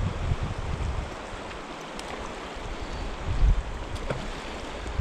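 Steady rush of a fast, riffled river flowing past the wading angler, with low gusts of wind buffeting the microphone, the strongest about three and a half seconds in.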